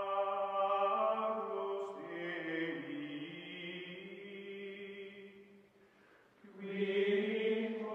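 Outro music of sustained, choir-like chanting voices holding long tones. It fades briefly about three quarters of the way through, then swells back in.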